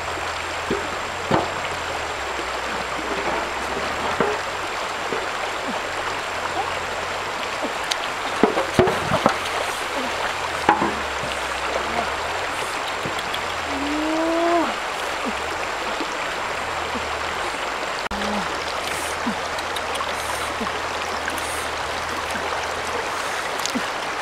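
Shallow river rushing steadily over rocks, with a few short knocks or splashes around the middle and one short call, rising then falling in pitch, about halfway through.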